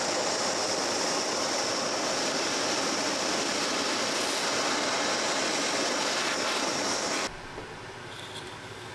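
A power tool running steadily with an even whirring hiss and a high whine, cutting off suddenly about seven seconds in.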